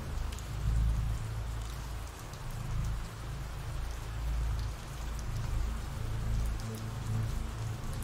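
Steady rain sound effect: an even hiss of falling rain, with a low rumble underneath that swells and fades slowly.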